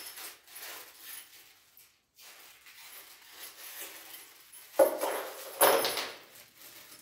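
A plastic bag of small metal door fittings rustling as it is torn open, then the metal pieces tipped out and clattering and jingling in two loud spills about five seconds in.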